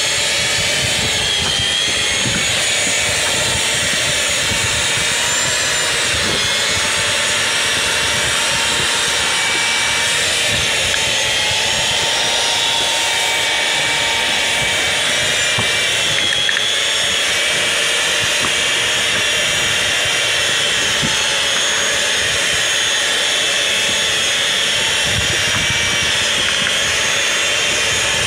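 SS-2000 electric standing-seam roof seaming machine running along the seam of a metal roof sheet. Its motor and drive give a steady whine made of several high tones that waver slightly in pitch.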